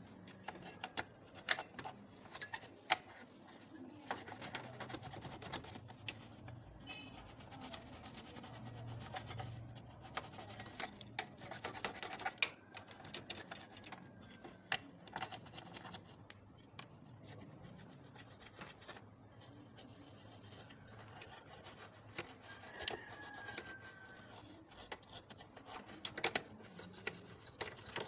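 Hand cleaning of a desktop computer's internal parts with a dry brush and cloth: irregular rubbing and scraping strokes, with scattered sharp clicks and knocks of the parts being handled.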